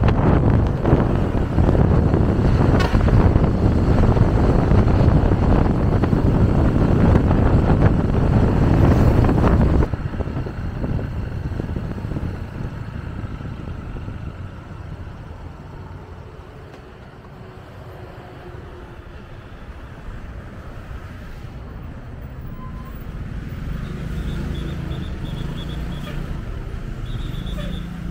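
Road vehicle noise, loud and dense for about the first ten seconds, then dropping off suddenly to a quieter rumble of traffic, with a low engine hum building again near the end.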